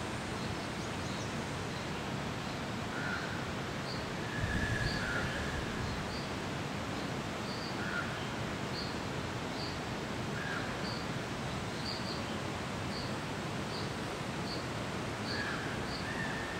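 Steady rushing outdoor background noise with small birds chirping, short high chirps about once a second and a few lower calls. A brief low rumble about four seconds in.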